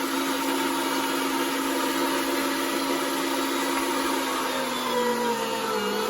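Electric grinder motor running steadily as it grinds pork and vegetables. Its pitch sags a little about four and a half seconds in as it takes on load.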